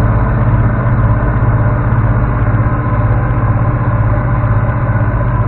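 1992 Bizon Super Z056 combine harvester running steadily while cutting rye: its six-cylinder diesel engine holds a constant pitch under the working noise of the threshing machinery.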